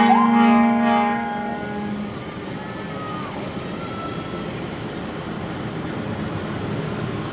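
Bus telolet horn sounding loudly for about the first second and a half, then giving way to steady road traffic noise.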